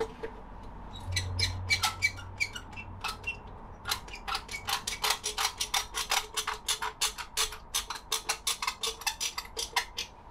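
Handheld caulking gun clicking as it is loaded with a cartridge of adhesive: a few scattered clicks and knocks at first, then a fast, fairly even run of clicks, about five a second, as the trigger and plunger rod are worked.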